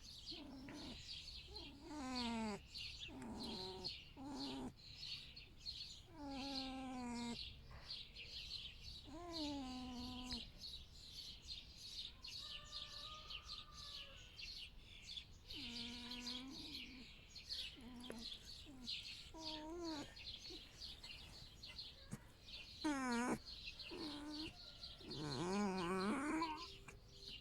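Pet fox making soft whining, mewing calls: about a dozen short cries with pauses between them, most sliding down in pitch, and a quick wavering one a little before the end.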